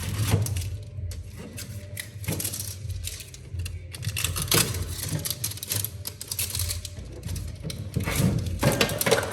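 Irregular clicks and knocks of objects being handled, over a steady low hum.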